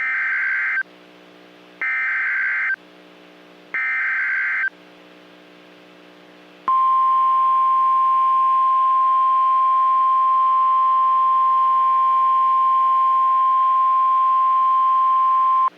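NOAA Weather Radio Emergency Alert System signal: three short screeching SAME data bursts, then after a brief pause the steady 1050 Hz warning alarm tone held for about nine seconds before cutting off. This alert sequence heralds a tornado warning broadcast.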